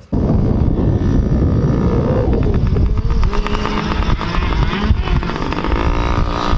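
Yamaha PW50 kids' dirt bike's small two-stroke engine running as the bike rides close past, its pitch rising and falling with the throttle. The sound cuts in suddenly just after the start.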